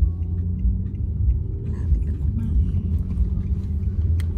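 Steady low rumble of a car being driven, heard from inside the cabin: engine and road noise.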